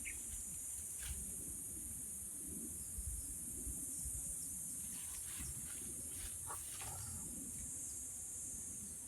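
Steady high-pitched chorus of insects, with an uneven low rumble beneath and a few faint brief sounds in the middle.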